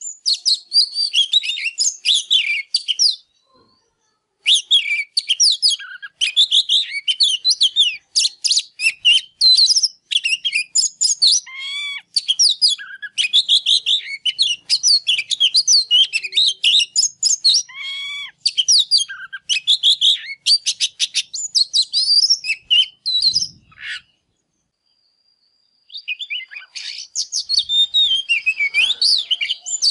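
Oriental magpie-robin singing a long, varied song of rapid chattering notes and clear whistles, with a few swooping lower notes. There is a short break about four seconds in and another two-second pause near the end.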